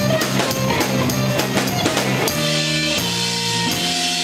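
Live rock band playing loud: drum kit, distorted electric guitars and bass, with a tambourine shaken along. About two seconds in the steady drum beat drops away and the guitars ring on held chords.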